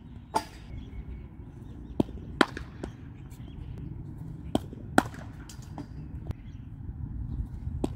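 Sharp knocks of a hard leather cricket ball during throwdowns in the nets, the ball pitching on the concrete strip and meeting the wooden bat. One knock comes just after the start, then two close pairs about half a second apart, around two seconds and around five seconds in, and another just before the end.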